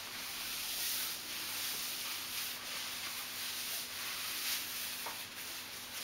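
Adidas nylon track pants rustling as hands rub and stroke the fabric: a soft, hissing swish that swells and fades every second or so.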